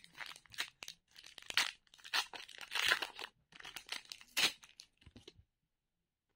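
Match Attax trading-card pack being torn open by hand: the wrapper crinkles and rips in short, irregular tears. The sound cuts off suddenly about five and a half seconds in.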